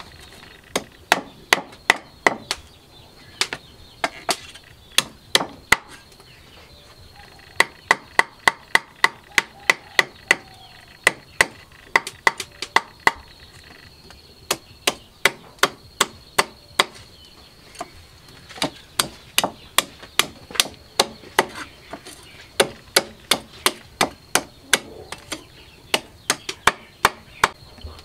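Cleaver chopping a catfish on a wooden chopping block: sharp chops in runs of about two or three a second, broken by short pauses.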